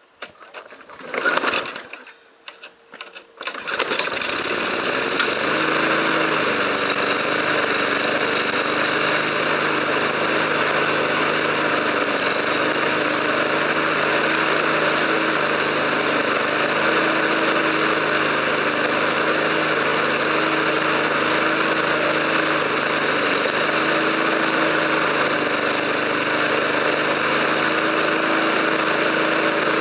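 Briggs & Stratton Sprint 375 lawn mower engine, a single-cylinder four-stroke, starting up about three and a half seconds in after a few short loud sounds, then running steadily at a constant high speed with its throttle taped open.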